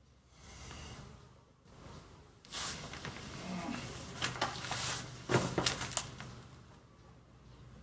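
Flattened cardboard and a jacket rustling and crackling as a person lying on the cardboard shifts and pushes up onto hands and knees. The crackling grows about two and a half seconds in, with a cluster of sharp crackles around five to six seconds in.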